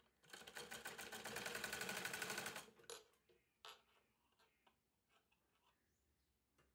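A sewing machine runs fast for about two and a half seconds while stitching a seam on the blouse piece, then stops. A few light clicks and taps follow.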